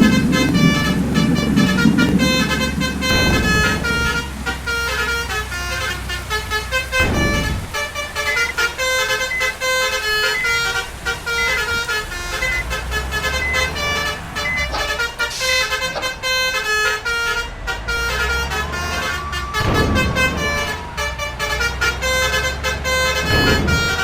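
A bus's basuri 'telolet' musical air horn playing a rapid tune of short notes, over the steady low rumble of the bus engine running.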